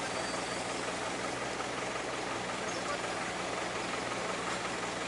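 Heavy vehicle engine idling steadily, a constant low hum under a broad mechanical hiss.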